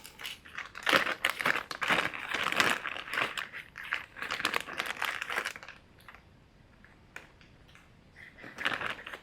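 Crinkling and rustling of plastic packaging while sorting through heat-shrink tubing supplies, in busy stretches for the first two-thirds, then a pause, then a little more rustling near the end.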